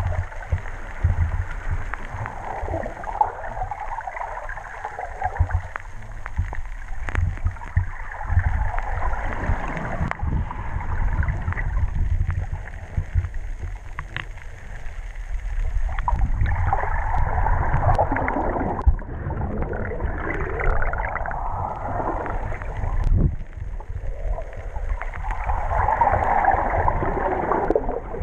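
Shallow surf recorded underwater: a muffled, constant low rumble of moving water, with rushing swells as waves surge over the rocks that grow louder in the second half. Occasional sharp clicks and a faint steady high whine sit over it.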